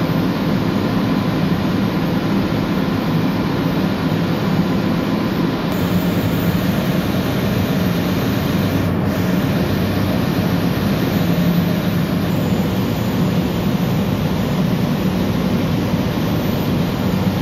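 Steady, loud drone of a ship's running machinery: a low hum under an even wash of mechanical noise that does not change.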